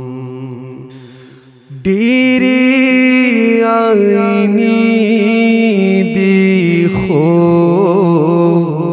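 Pashto song: a held sung note fades out over the first second and a half. A new long, drawn-out sung phrase with a wavering, ornamented pitch starts about two seconds in, breaks briefly around seven seconds, and carries on.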